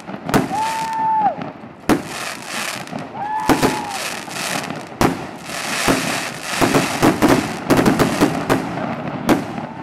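Fireworks going off: a rapid series of sharp bangs as aerial shells launch and burst, with crackling between them and two short whistling tones in the first half.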